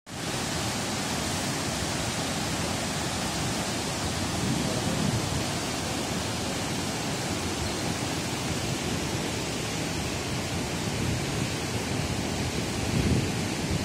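Kaveri river water rushing and churning through foaming whitewater, a steady loud rush with no breaks.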